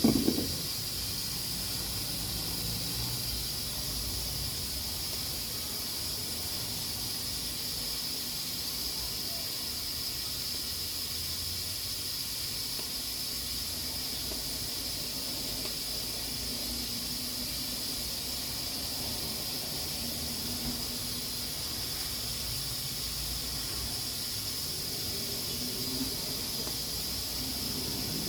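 Pressure cooker at full pressure, steam hissing steadily from its valve in a high, even hiss. A brief knock right at the start.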